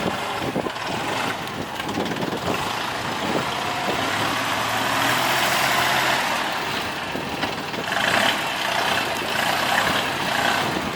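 Farm tractor's diesel engine running under load while its loader works a heavy rock, with a few knocks in the first couple of seconds.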